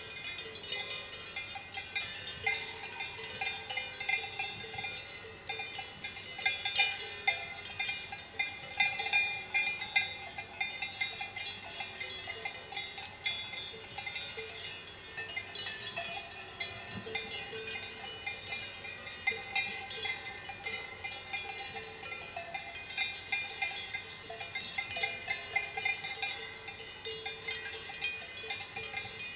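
Swiss cowbells on a grazing herd, clanking irregularly and without pause, several bells of different pitch ringing over one another.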